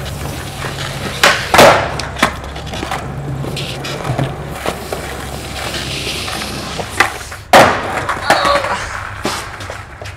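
Skateboard wheels rolling on a concrete floor, with two sets of a sharp click followed by a louder board slap, about a second and a half in and again about seven and a half seconds in, plus a few lighter knocks.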